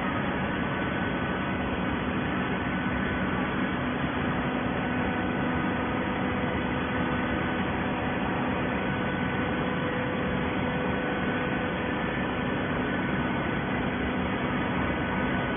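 Horizontal automatic baler's hydraulic power unit running steadily: a continuous hum with several fixed whining tones over an even mechanical hiss.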